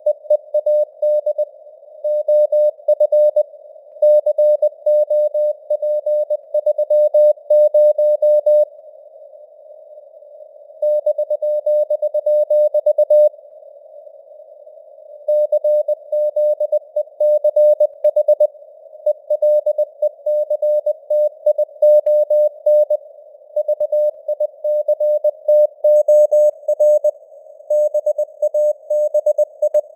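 Morse code sent at 20 words per minute: a single steady tone keyed on and off in dots and dashes over a faint band of simulated radio hiss. There are two longer pauses of about two seconds, near a third of the way in and near half way.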